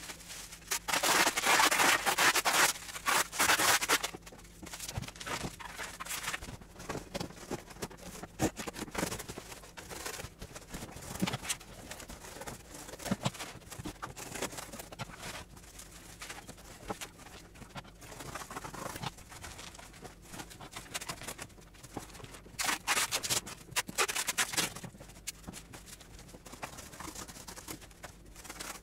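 Packing sounds: clear plastic wrap rustling loudly for a few seconds near the start, then cardboard scraping, rustles and light knocks as a wrapped box and packing are fitted into a cardboard carton, with another loud burst of rustling about three quarters of the way through as the carton is closed.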